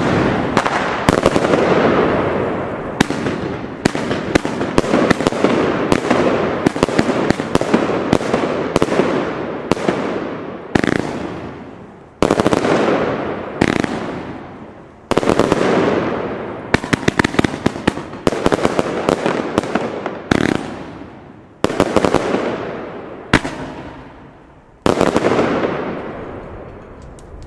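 PyroProdukt 'Hype' firework battery firing: rapid volleys of shots, each followed by dense crackling that fades over a second or two, the firing pausing and restarting about a dozen times.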